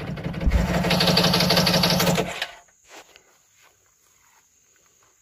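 The electric starter cranks a Kawasaki 1100 STX three-cylinder two-stroke jet ski engine, with the throttle held wide open, for about two and a half seconds, then stops. The engine turns over in an even, rhythmic beat as a compression gauge on one cylinder takes its reading.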